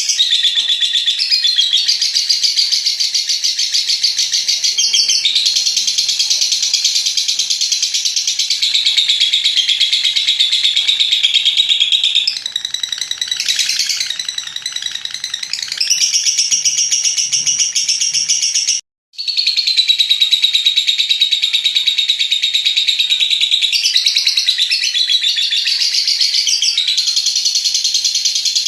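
Lovebird chattering in a long, rapid, high-pitched trill, its 'ngekek panjang', shifting in pattern every few seconds. The sound cuts out completely for a split second about two-thirds of the way through.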